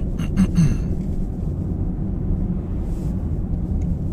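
Steady low rumble of road and engine noise heard from inside a moving car's cabin. A brief voice-like sound comes just after the start.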